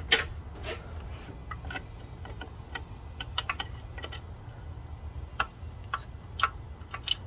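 Irregular light clicks and taps as a new transmission range sensor is handled and worked into place on the transmission by hand, the sharpest click just at the start. A steady low hum runs underneath.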